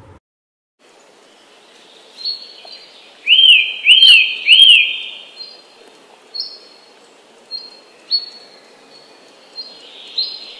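Birds calling over a steady background hiss: three loud chirps in quick succession about three seconds in, each rising then falling, with short thin high notes recurring throughout.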